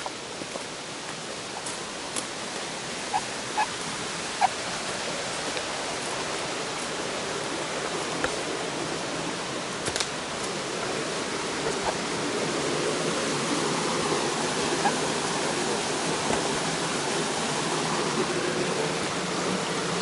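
Steady rushing of a waterfall and its rocky stream, growing somewhat louder in the second half, with a few sharp clicks.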